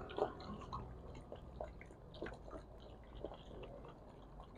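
Several puppies eating rice from a shared bowl: soft, irregular smacking and chewing clicks.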